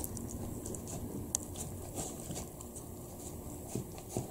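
Shiba Inu licking and nosing at a light plastic food bowl on a wooden table: scattered small clicks and taps, a few sharper ones near the end.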